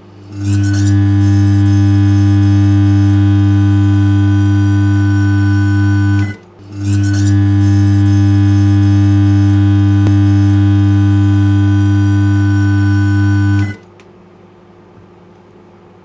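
Loud, steady electrical buzz of a plasma burning inside a running microwave oven, lit from scrunched carbon fibre tissue. It drops out briefly about six seconds in, starts again, and cuts off abruptly near fourteen seconds.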